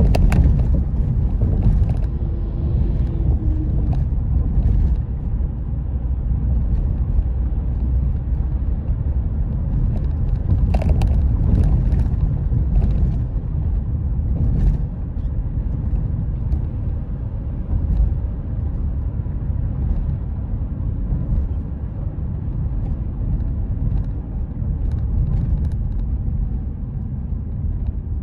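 Steady low rumble of a car driving along, heard from inside the car: engine and tyre noise on the road. A few brief knocks come near the middle.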